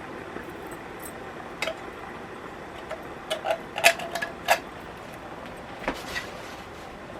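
Several sharp metallic clinks and taps, a metal utensil or can knocking against the cooking pot, the loudest two in the middle, over a steady low hiss.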